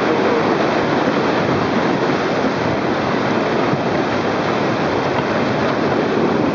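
White-water river rapids rushing and churning close to the microphone, a loud, steady, unbroken rush of water.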